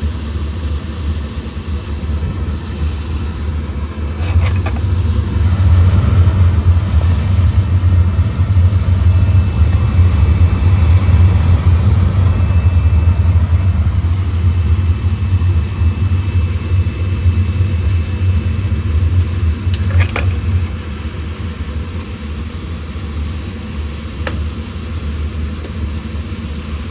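Oil burner firing, a steady low rumble of flame and burner motor, running normally with no sign of the intermittent shutdown. It grows louder about four seconds in and drops back about three-quarters of the way through, with a couple of short clicks.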